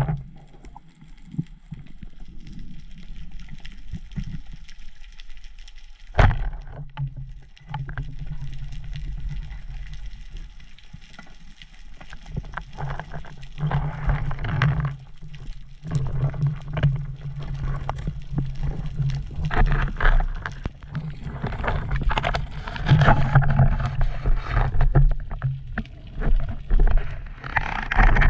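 Underwater sound picked up through a diver's camera housing: a steady low water hum, a sharp knock about six seconds in, then repeated rushes and gurgles of moving water as the spearfisher kicks up toward the surface.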